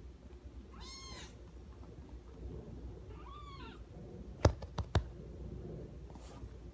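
Black-and-white kitten mewing in thin, high-pitched calls, twice in the first half. Then a few sharp clicks in quick succession about halfway through, the loudest sounds.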